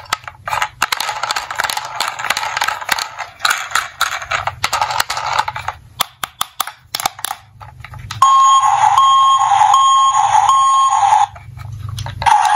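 Hard plastic toy vehicles clicking and rattling as they are handled in a cardboard box, then the toy police pickup truck's built-in electronic siren sounding loudly, a steady tone broken into about four repeating pulses, cutting off about a second before a sound starts again at the very end.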